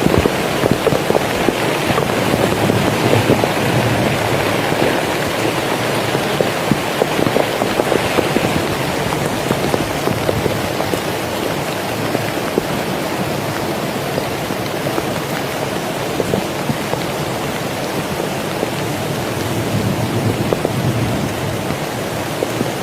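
Heavy rain falling steadily: an even hiss made of many small drop impacts.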